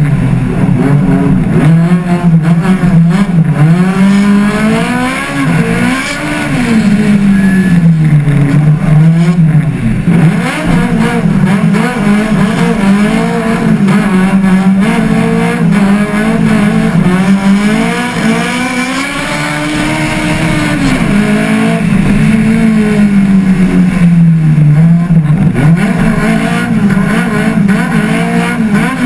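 Opel Kadett GTE hillclimb racing car's four-cylinder engine at full load, the note rising and falling again and again through gear changes and corners. It eases off twice, around five seconds in and again near the twenty-second mark, before pulling hard again.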